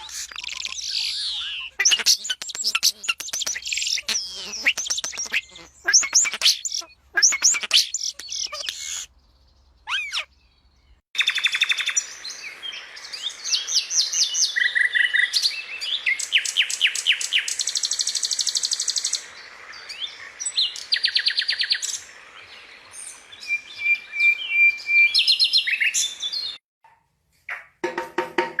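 A quick string of different bird-like calls: chirps, whistled trills and rapid runs of repeated high notes, with a short silent break about ten seconds in and another near the end.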